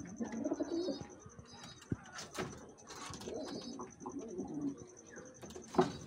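Domestic pigeons cooing in a loft: a string of low, rolling coos from more than one bird, overlapping and coming again every second or so.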